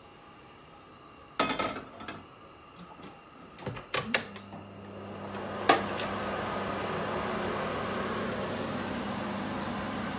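A wok clanking against the metal pan support of a gas hob a few times. About four seconds in, a steady low hum with a hiss starts suddenly and runs on, like a kitchen fan or the burner turned up under the heating oil.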